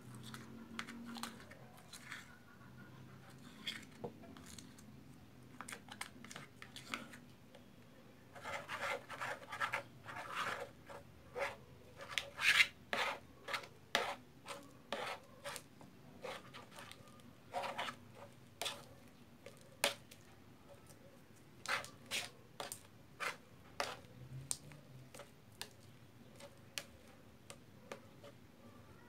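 Freshly mixed white glue-and-shaving-cream slime being stirred with a plastic stick and squished by hand: a string of faint sticky clicks and crackles, thickest in the middle.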